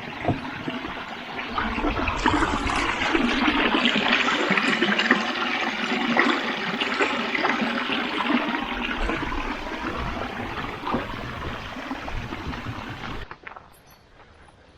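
Water splashing and gurgling close to the microphone, swelling about two seconds in, easing off, then cutting off abruptly near the end.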